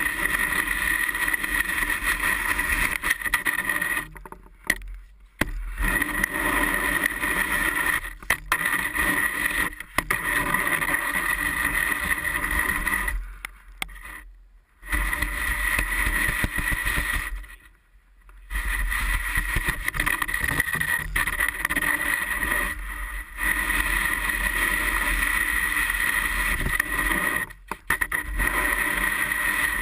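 Metal snow shovel blade scraping and pushing snow along wooden deck boards, heard through a camera mounted on the shovel itself. The scraping is continuous, broken by several short pauses.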